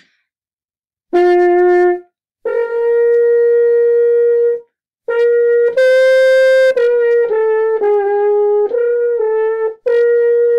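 French horn playing a series of high-register notes: a short lower note, then two long held notes, then a run of shorter notes stepping up and down, ending on a held note. These high notes tire a horn player's lips if held up there for long.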